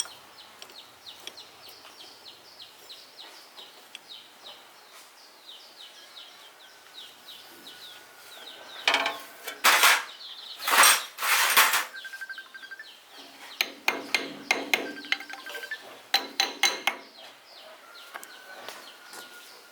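Metal parts and tools knocking and clattering in several loud clusters of sharp strikes about halfway through, after a stretch of faint, rapid ticking.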